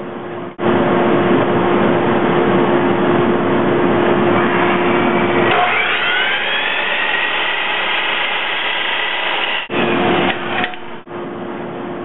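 Electric miter saw running and crosscutting wooden stave stock to length, a loud noise of blade through wood over the motor's hum. About halfway through, the cutting noise drops away and the motor's whine shifts in pitch, and the sound stops abruptly several times.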